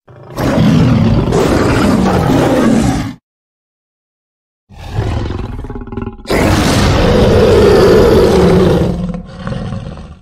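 Two long, loud big-cat roars, given as a reconstructed voice of the extinct American lion (Panthera leo atrox). The first lasts about three seconds. After a second or so of dead silence, a second, longer roar builds up and runs about five seconds.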